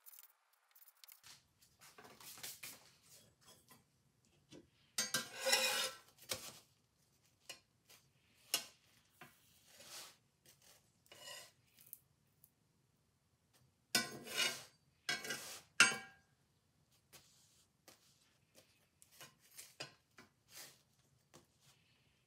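Slotted metal spatula scraping and knocking against a cast-iron skillet, with a glass lid clinking as it is lifted, while a pita is turned in the dry pan. The louder scrapes come in two clusters, about five seconds in and again from about fourteen to sixteen seconds.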